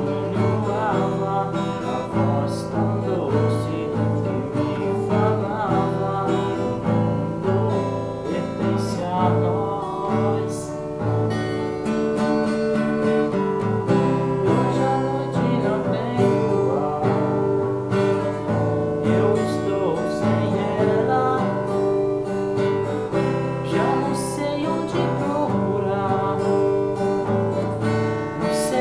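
Nylon-string classical guitar strummed and picked in a steady accompaniment, with a man singing over it in places.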